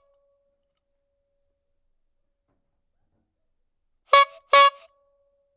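Clown's squeeze-bulb horn honking twice in quick succession about four seconds in, each honk a short, bright, nasal toot.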